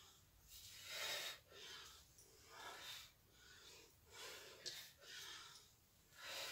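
Faint breathing of a woman exerting herself in a stretching exercise: short breaths in and out, about one a second.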